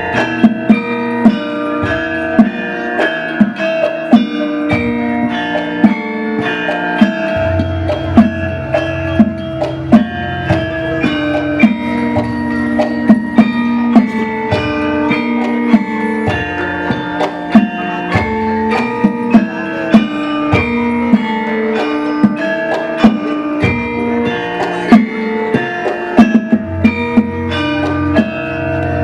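Javanese gamelan ensemble playing karawitan: struck bronze metallophones ringing on many sustained pitched notes, with frequent sharp struck accents keeping a steady rhythm.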